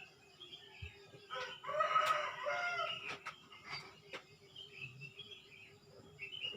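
A rooster crowing once, a call of about a second and a half starting just over a second in, with small birds chirping faintly around it.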